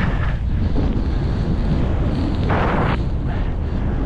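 Wind rumbling on a GoPro's microphone as a snowboard runs fast through deep powder, the board hissing through the snow, with a louder burst of hiss about two and a half seconds in.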